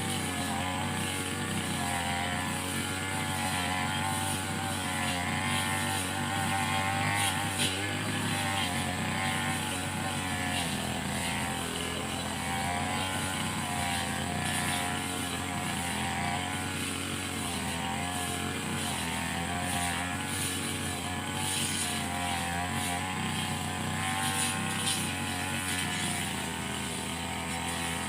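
Petrol brush cutter running continuously at high speed, its engine pitch wavering slightly as it cuts grass.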